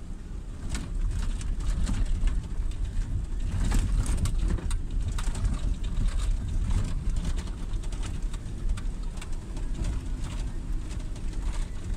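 Cabin noise inside a four-wheel-drive vehicle driving over a rough dirt road: a steady low rumble of engine and tyres with frequent knocks and rattles from the bumps.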